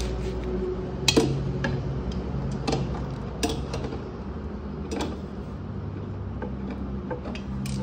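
Metal hand tools clinking and tapping on the compressor's fittings, in scattered short clicks, over a steady low hum.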